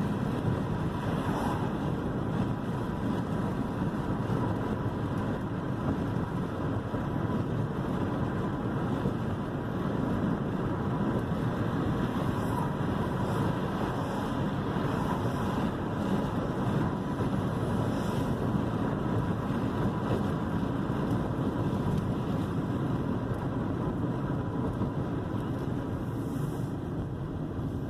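Steady road and engine noise inside a moving 2001 Toyota Corolla's cabin, the car cruising at an even pace.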